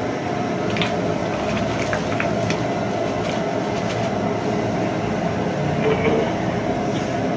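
Steady rushing roar of a gas burner on high flame under a large pot of heating water, with a few faint crinkles and splashes as chopped green chillies are tipped in from a plastic bag.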